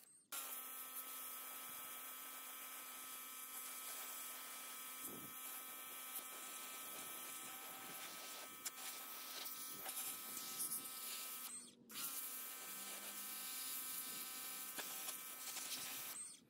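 Pressure washer running: a steady motor-pump whine under the hiss of a high-pressure water jet hitting an alloy car wheel. It cuts out for a moment about twelve seconds in and stops near the end.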